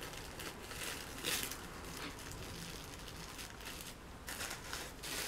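Tissue paper rustling and crinkling in short bursts as it is unwrapped by hand, loudest about a second in.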